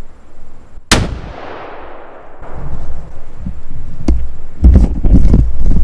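A single rifle shot from a Savage .270 about a second in, its report echoing and fading away over about a second and a half. Later come a sharp click and heavy low thumps and rustling.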